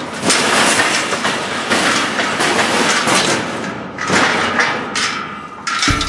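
Steel pipe bucking-chute panels and gate rattling and clanking in a loud, jumbled clatter of knocks. Guitar music comes in near the end.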